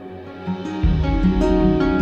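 Background music between sung lines: gentle acoustic guitar, with a bass and fuller accompaniment coming in a little under a second in.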